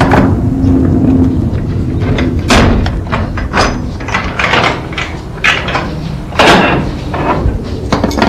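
Bolt cutters snap through a padlock, then a garage door is heaved up and clatters along its tracks in about five rattling bursts, roughly one a second.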